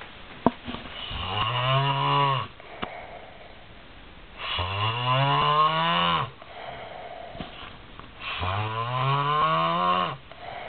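A person snoring loudly, like a cow lowing: three long, drawn-out snores about four seconds apart, each pitched and rising then falling, with quieter breaths between them. A sharp click about half a second in.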